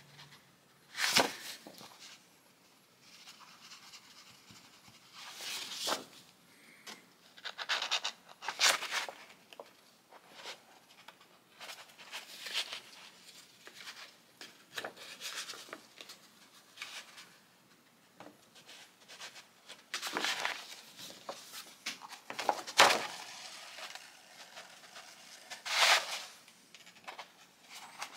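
Irregular short swishes and rustles of paper and thread as a soft-cover journal's chain stitch is sewn and pulled tight by hand, with quieter stretches between.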